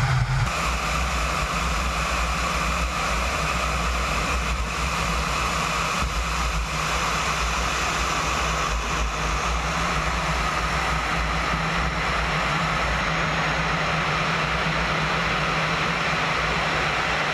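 Su-33 fighter's twin jet engines running, heard as a steady rushing noise with a low rumble through a camera mounted under the aircraft as it moves along the concrete runway. The sound holds steady, with no rise or fall in pitch.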